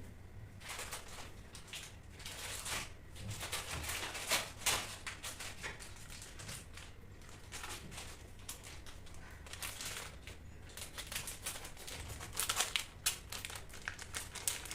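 A hair-colour kit's packaging being opened and handled: irregular crinkling and rustling with small taps, as the box is opened and the sachets are taken out.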